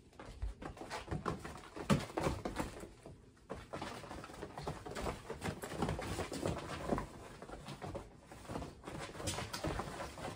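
Kittens' paws thumping and scrabbling on the fabric floor and walls of a pop-up playpen as they hop and pounce. The soft knocks and rustles come irregularly, with the loudest thump about two seconds in.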